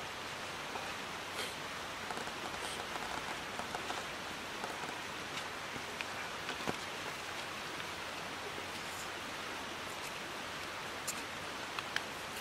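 A steady rushing hiss, with light clicks and taps of chopsticks and utensils on bowls scattered through it.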